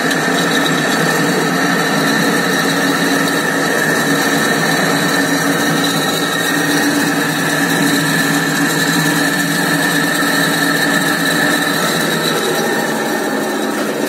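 Spin-dryer motor of an LG twin-tub washing machine running steadily, spinning the spin tub: a continuous hum with a steady whine over it. It is powered straight through the lid switch to test it, bypassing the faulty spin timer.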